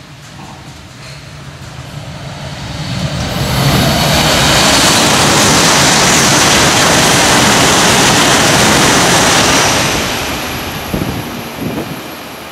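Shinkansen bullet train passing through the station at close to full speed on the track beside the platform: a rush of noise that builds over a couple of seconds, holds loud for about six, then dies away, with a few short sharp knocks as the tail goes by.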